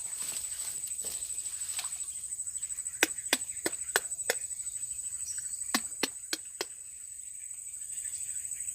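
Insects chirring steadily at a high pitch, with two quick runs of sharp clicks in the middle, five and then four, about a third of a second apart.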